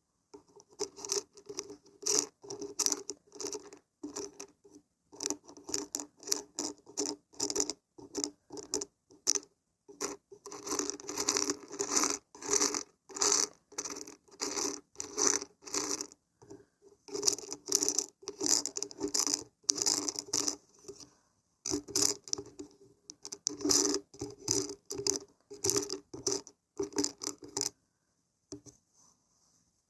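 Beans and barberries being shaken, rattling in quick runs of strokes with short pauses in between.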